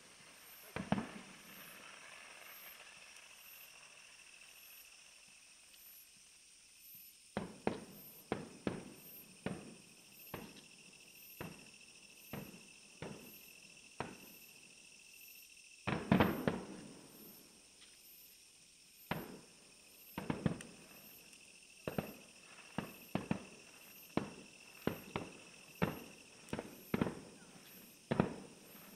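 Fireworks shells bursting in a string of sharp bangs, sparse at first and then about one a second. The loudest cluster of bursts comes about 16 seconds in.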